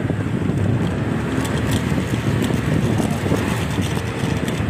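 Small motorcycle engine running steadily as it rides along a street, with wind buffeting the microphone.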